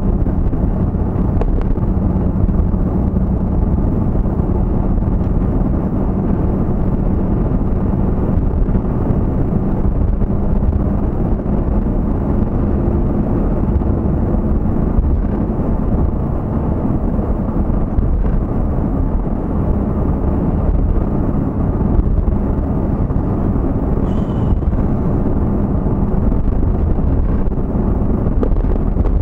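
Steady, low-pitched road and engine noise of a vehicle driving, heard from inside the cabin.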